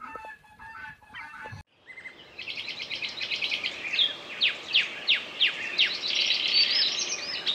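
Small birds chirping busily: many quick, high calls sliding downward, several a second, which start abruptly about two seconds in.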